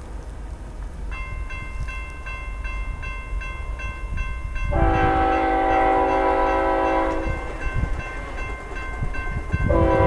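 Railroad crossing bell ringing steadily from about a second in, as the crossing signals activate; an approaching CSX freight locomotive's air horn sounds a long blast of about two and a half seconds midway and starts another blast near the end.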